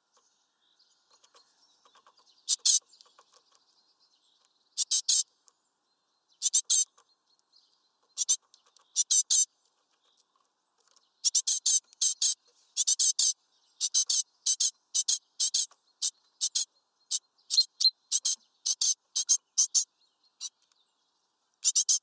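Small songbird chirping: short, high notes in quick runs, sparse at first and nearly continuous through the second half, stopping shortly before the end, with faint twittering in between.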